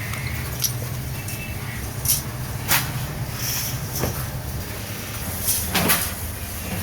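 Steady low hum of running workshop machinery, with a handful of sharp metal knocks and clanks at irregular intervals, the loudest coming near the end.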